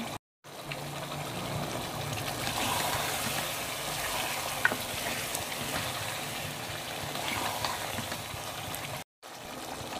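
Mutton, taro root and tomato curry sizzling in a pot as it is fried down and stirred with a metal spoon, with one sharp tick about halfway through.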